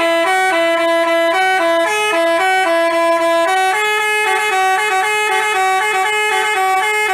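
A bus's telolet basuri musical horn playing a melody of buzzy, sustained notes that step quickly up and down in pitch.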